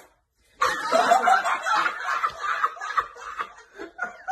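A man laughing hard in quick bursts, starting about half a second in and trailing off into smaller chuckles near the end.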